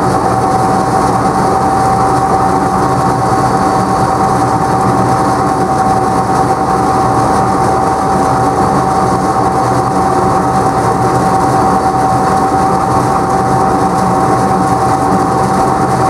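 Tractor-PTO-driven Wakely 1240 roller mill running steadily while crimping maize, its rollers and discharge elevator giving a constant mechanical rattle under the tractor engine. A steady hum of one pitch runs through it without change.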